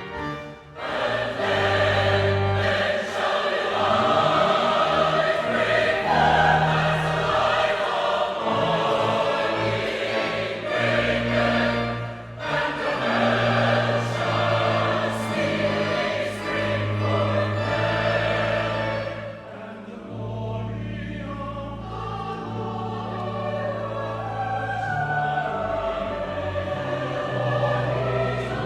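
Church choir singing a sung piece with sustained, held notes, growing softer about two-thirds of the way through.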